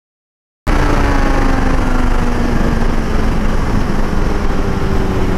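Kawasaki Z900's inline-four with a full-system exhaust running hard at high speed, its note easing slightly lower, under heavy wind rush on the camera's microphone. The sound cuts in abruptly after a moment of dead silence less than a second in.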